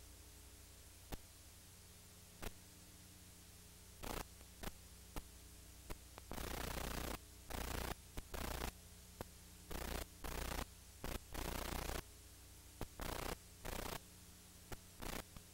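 Steady low electrical hum with a couple of faint clicks. From about four seconds in, irregular bursts of harsh static hiss cut in and out sharply. This is noise on the soundtrack of an old videotape recording, not a sound from the room.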